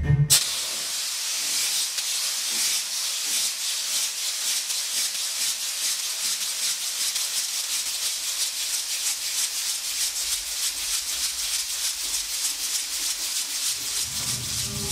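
A steady high hiss of noise with a fast, fine grainy rattle in it, part of the performance's sound score; it cuts in abruptly as the bass-heavy music stops, and low music returns near the end.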